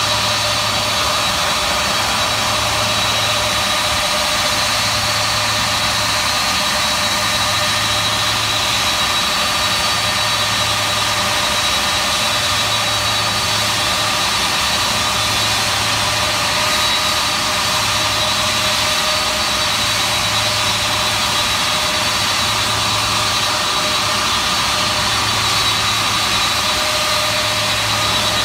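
C-5 Galaxy's TF39 turbofan engines running steadily on the ground: a steady jet whine over a broad rush, with a low hum underneath that swells and fades about every two seconds.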